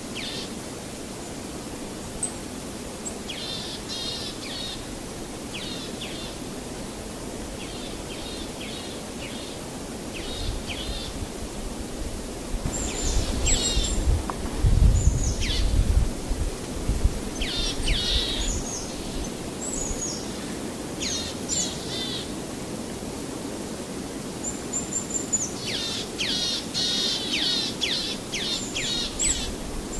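Small birds chirping in quick runs of high, falling notes, busier in the second half, over a steady hiss. A low rumble swells about halfway through.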